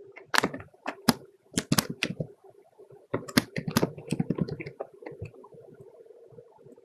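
Typing on a computer keyboard in two quick runs of keystrokes with a short pause between them, over a faint steady hum.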